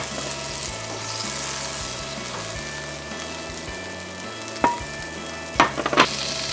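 Butter sizzling steadily as it melts in a hot cast-iron skillet. A few knocks come near the end as the pan is lifted, swirled and set back down on the glass induction hob.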